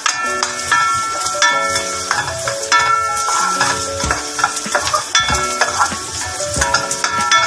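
Minced garlic sizzling and frying in hot cooking oil in a pan, a steady high hiss, with background music playing melodic notes over it.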